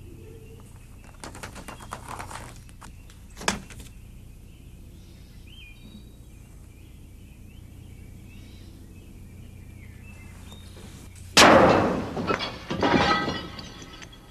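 A few soft clicks and a sharp knock, then a loud crash about eleven seconds in, like something breaking, which rattles on and dies away over about two seconds.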